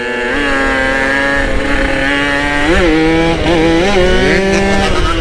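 Yamaha RX-King two-stroke single-cylinder motorcycle engine running under way at a steady pitch, with three quick throttle blips that rise and fall in pitch near the middle. A low rumble of wind on the microphone runs underneath.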